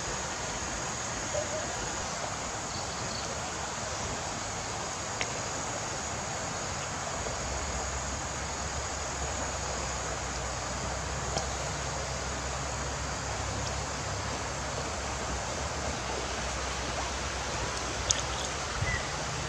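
Steady rushing hiss, like running water, with a few faint light clicks and a low rumble beneath it in the second half.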